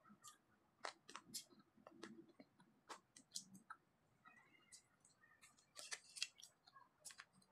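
Faint eating sounds: scattered clicks of chopsticks against a plastic food container, with soft chewing between them. The clicks come thickest about six seconds in.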